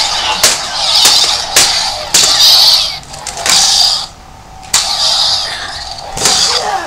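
Plastic toy lightsabers clashing in a mock duel: a string of sharp clacks, about half a dozen over a few seconds, with a hiss between the hits.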